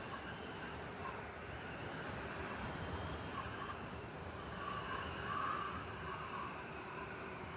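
Steady blizzard wind noise in a city street, with a low rumble underneath and a higher whistling tone that swells about five seconds in.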